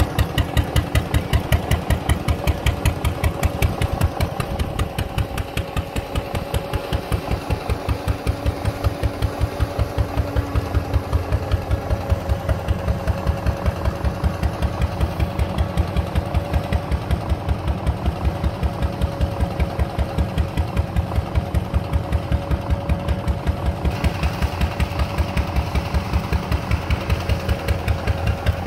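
Arrow C-96 single-cylinder gas engine running steadily as it drives a pumpjack. Its exhaust beat is even, at about five beats a second.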